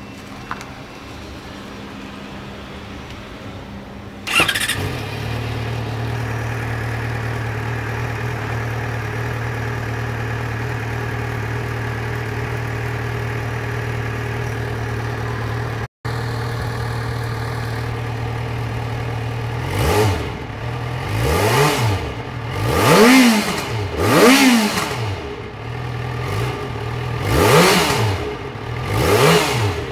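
Yamaha XJ6-N's 600 cc inline-four engine starting about four seconds in and settling into a steady idle. Over the last ten seconds it is revved in six short throttle blips, each rising and falling in pitch.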